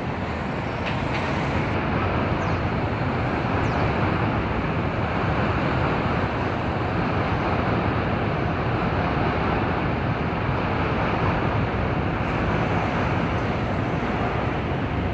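Steady city street traffic noise, a continuous rumble of passing vehicles, growing slightly louder about two seconds in.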